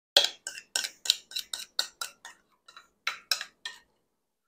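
A spoon scraping and knocking against a mixing bowl, about a dozen short strokes in quick succession, as the last of the lemon pudding is scraped out.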